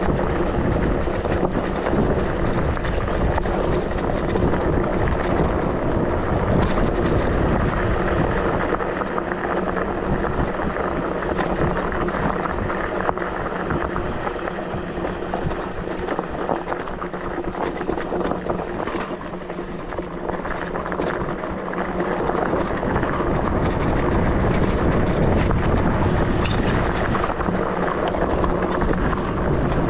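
Wind buffeting the microphone while an ENGWE X24 e-bike rolls over rough off-road ground, with many short rattles and knocks from the bike. The buffeting eases off for a while in the middle.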